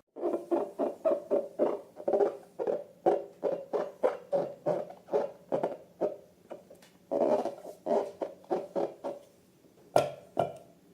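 Glossy slime being squeezed and worked by hand: a quick run of wet squelches and pops, about three a second. It stops near the end, leaving two sharp clicks.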